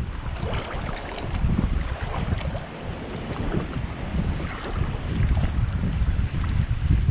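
Shallow seawater sloshing and splashing around a person's legs as he wades between rocks, with wind buffeting the action-camera microphone in uneven gusts.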